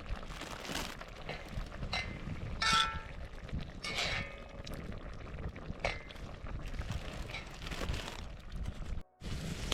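Metal camp cookware clinking, with two ringing knocks about three and four seconds in, over a steady low rumble of wind.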